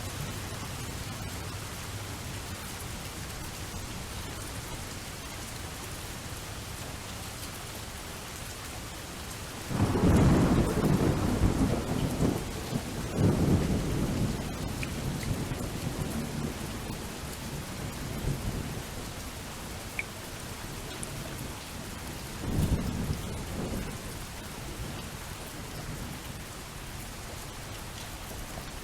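Steady rain falling, with a loud roll of thunder breaking in about a third of the way through and rumbling for several seconds, then a shorter, fainter rumble about two-thirds of the way through.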